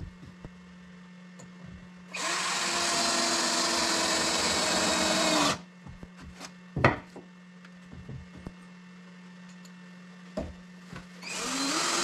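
Cordless drill spinning up and running for about three seconds, then starting again near the end, with a few knocks and clicks between the two runs.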